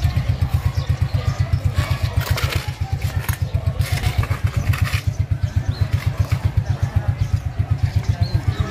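Small engine running with a steady low throb, about seven pulses a second, with some faint clatter above it.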